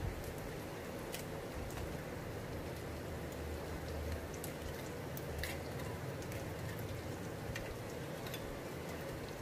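Faint, scattered clinks of a steel spoon against steel bowls and a plate as thick rabri is scooped and spread, over a steady background hiss.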